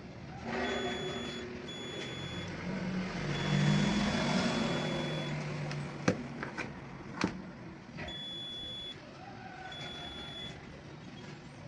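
An electronic beeper sounds a steady high tone five times, most beeps about a second long and the third about two seconds, over a low hum. Two sharp clicks come near the middle.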